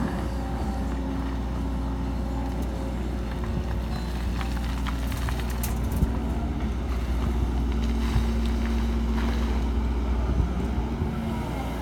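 Hidromek HMK 140 crawler excavator's diesel engine running steadily under hydraulic load as it digs and lifts a bucket of soil, its note shifting slightly with the work. A few short knocks, the sharpest about six seconds in.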